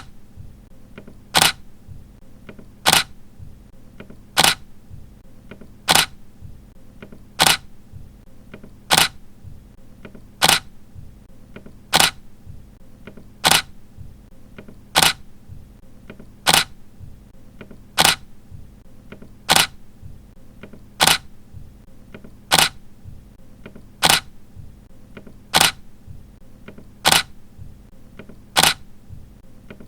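Camera shutter clicking once about every one and a half seconds, the same sharp click repeated about twenty times at an even pace.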